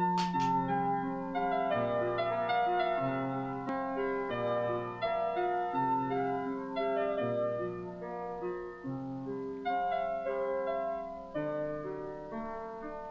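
Background piano music: a slow melody of held notes over a sustained low bass note.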